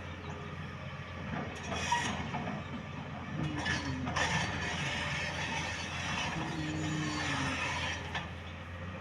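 Tata Hitachi Zaxis 370 LCH excavator's diesel engine running steadily under load while it works. From about one and a half seconds in, the hydraulics whine, rising and falling, and the bucket scrapes and clatters through blasted rock debris, loudest around two and four seconds in.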